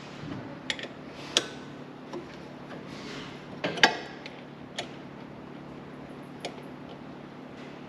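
Scattered sharp metallic clicks and taps from hand tools and exhaust parts being handled during the exhaust install, over a steady low hum.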